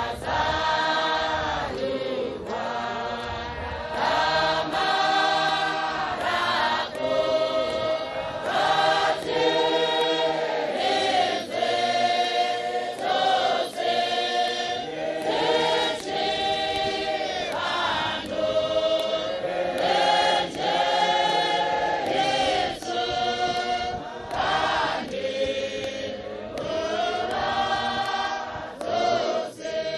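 Congregation singing a hymn together as a choir of many women's voices, in long held phrases that rise and fall.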